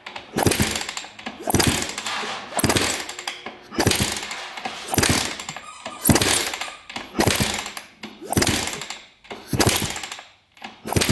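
The 1983 Honda CR250's kickstarter is kicked over about ten times, roughly once a second, each stroke a sharp clunk that fades as the two-stroke engine spins freely with its spark plug out. This is a spark test, and the plug is sparking.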